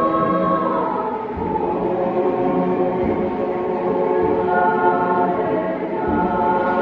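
Youth church choir singing sustained chords in several parts, moving to a new chord about a second in and again near the end.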